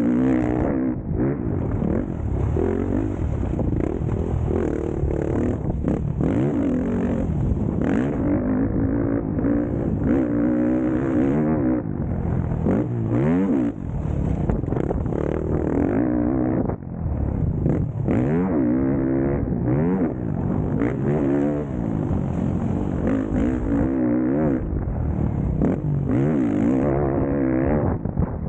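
Motocross dirt bike engines at full race pace, revving hard and repeatedly. The pitch climbs through each gear and drops back every second or two at shifts and roll-offs.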